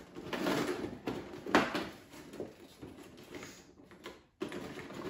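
An advent calendar compartment being opened and its contents handled: irregular rustling and scraping, with one sharp click about a second and a half in.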